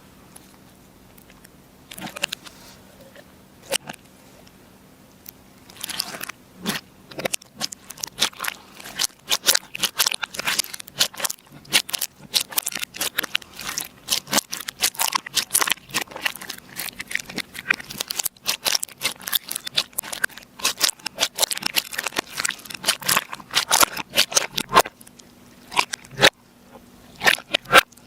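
Slime being squeezed and pressed by hand, giving sharp crackling and popping clicks: only a few in the first several seconds, then a dense, nearly continuous run.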